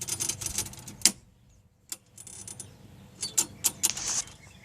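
Clicks and rattles of an old push mower's control cable and lever being worked by hand, with one sharp click about a second in. Something is wrong with the cable, which does not work properly.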